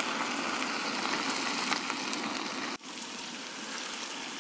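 Chopped onions, then duck meat, sizzling in hot oil in a large iron wok: a steady hiss with fine crackles. It breaks off abruptly a little before three seconds in and comes back slightly quieter.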